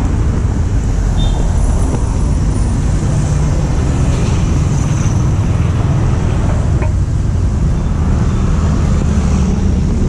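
Honda Astrea Prima 110cc single-cylinder four-stroke motorcycle engine running steadily through a custom underbelly exhaust with resonator.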